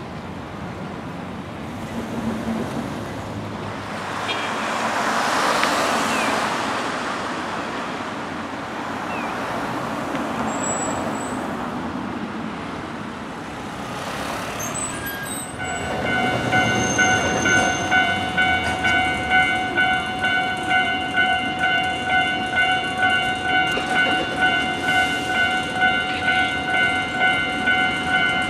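Road traffic passing, then about halfway through a Japanese level-crossing warning bell starts, a steady ding repeating at a quick even pace: the signal warning of an approaching tram.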